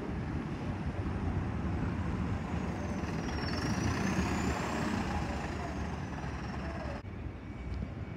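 Optare Solo single-deck midibus driving past close by, its engine and tyre noise swelling to its loudest about four seconds in, with a thin high whine over it. The sound breaks off suddenly near the end into quieter bus-station traffic noise.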